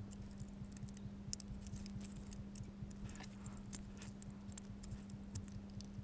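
Faint small plastic clicks and taps as a Sony RM-SC30 remote control's circuit board is worked into its plastic housing, over a steady low hum.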